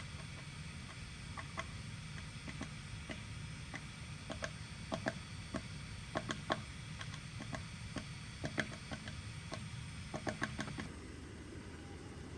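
Woodpecker pecking at wood: irregular sharp taps, some single and some in quick clusters of three to five, not a drumming roll.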